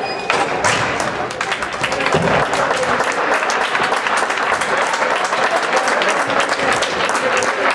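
A crowd of spectators clapping steadily in a sports hall, many hands at once.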